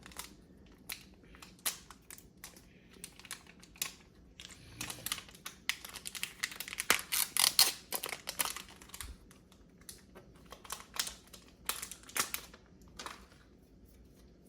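Pokémon booster pack and cards being handled: a run of light irregular clicks and crinkles, busiest in the middle.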